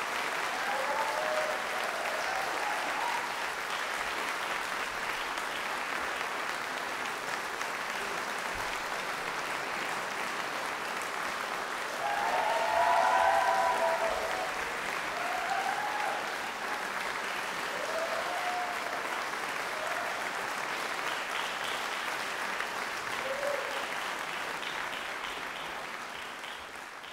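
Audience applauding steadily, with a few cheers that swell about twelve seconds in as the performers return for another bow. The applause thins out near the end.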